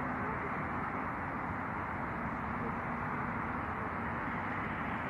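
Steady outdoor city background noise, a continuous even rush of traffic picked up by a phone's microphone.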